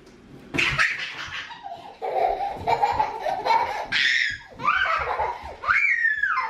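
Young children laughing and giggling, with a high rising-and-falling squeal near the end.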